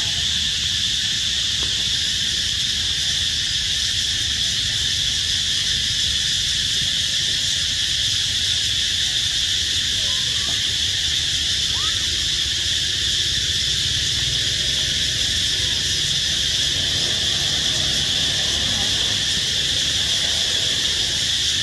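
Steady chorus of insects shrilling at one high, even pitch without a break, over a low rumble.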